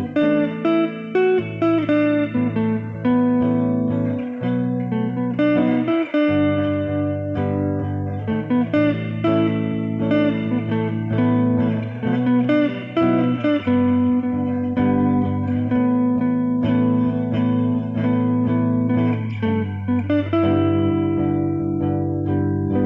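Solo guitar playing an instrumental jam: plucked notes and chords that change every second or so over held low notes.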